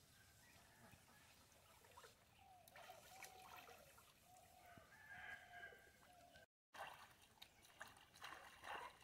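Quiet outdoor ambience with faint birds calling, a run of short repeated calls in the middle. Near the end come soft sloshes of shallow pond water as someone wades and handles a fish-trap net.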